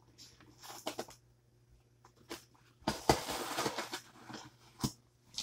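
Cardboard shipping box being opened by hand: a few light clicks and rustles, then a tearing sound lasting a little over a second about three seconds in, and one sharp click near the end.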